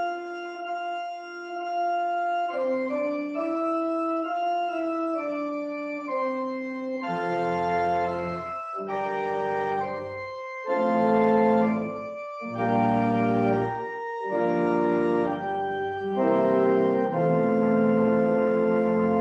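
Church organ playing a slow piece of sustained chords, its phrases separated by short breaks. The deep bass notes are missing at first and come in about seven seconds in.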